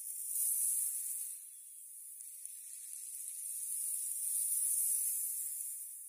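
Small sea waves washing onto the beach: a soft hiss that swells twice, once shortly after the start and again about four to five seconds in.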